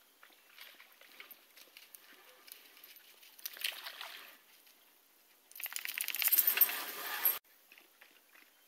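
Dog wading in a shallow creek, water splashing and sloshing. A louder run of rapid splashing starts about five and a half seconds in, lasts nearly two seconds and stops abruptly, with fainter small splashes before it.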